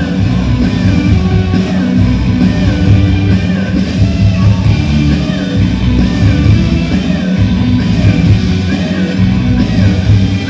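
Rock band playing live through a PA system, with singing over loud, driving guitars, bass and drums, with the echo of a large hall.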